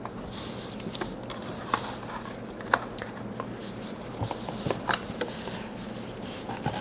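Scattered light clicks from handling a small plastic camera remote and action camera and pressing their buttons, over a steady low room hum.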